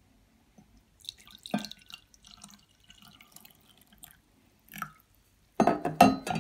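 Coffee poured from a metal insulated flask into a ceramic mug, with uneven splashing and trickling. Near the end come a few loud knocks as the flask is handled.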